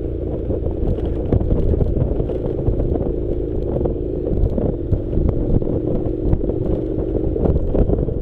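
Honda NC700's 670 cc parallel-twin engine running at a steady pace over a rough dirt track, with frequent clicks and knocks from the loose surface and wind on the microphone.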